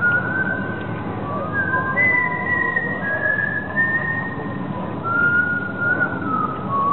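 A slow whistled melody of long held notes that slide from one pitch to the next, from the soundtrack of a film played over loudspeakers, over a steady low background noise.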